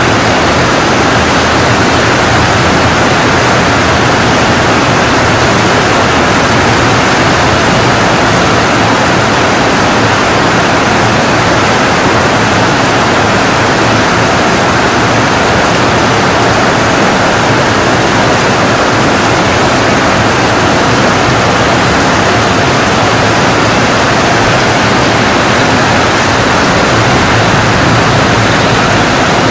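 Heavy rain pouring down in a steady, loud hiss of a tropical downpour.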